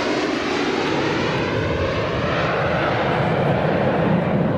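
Panavia Tornado jet in flight, its twin RB199 turbofans making a loud, steady rushing jet noise with a sweeping, phasing quality. The sound grows duller near the end.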